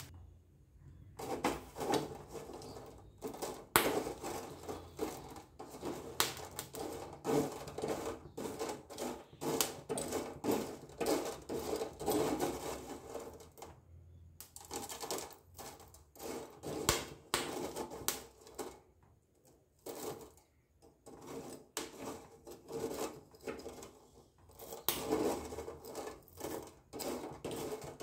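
Broken slate pencil pieces clicking and clattering against one another and a wire-mesh strainer as they are stirred with a spoon while dry-roasting over a gas burner. The clatter comes in quick irregular runs, with short pauses about halfway through and again some seconds later.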